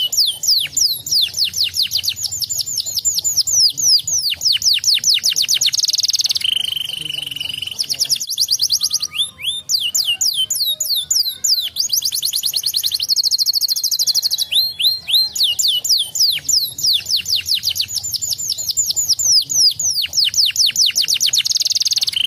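Domestic canary singing: fast trills of repeated falling whistled notes, with a lower steady held note about six seconds in and a brief pause near the middle, after which the trills start again.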